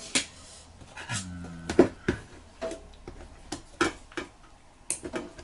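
Scattered sharp clicks and taps of a screwdriver and small carburettor parts being handled against metal and a stainless steel tray, about seven in all, the loudest just under two seconds in.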